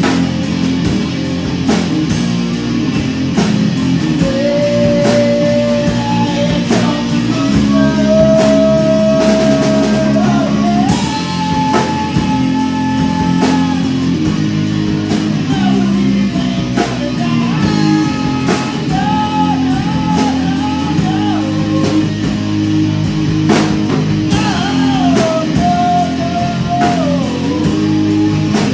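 Live rock band playing: electric guitar, drum kit and a singer, with long held notes over a steady drum beat.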